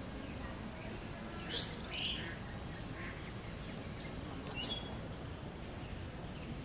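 Birds chirping over a steady outdoor background hiss: a short cluster of high calls about a second and a half in, and one quick rising call near five seconds.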